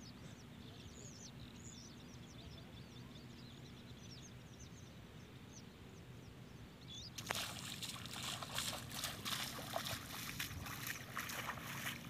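Small birds chirping over a low background hiss. About seven seconds in, loud irregular splashing starts: feet wading step by step through shallow water.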